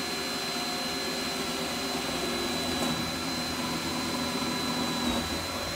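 Power drill running steadily at constant speed with a high whine, drilling through the side of a plastic kayak hull for a 5 mm rivet.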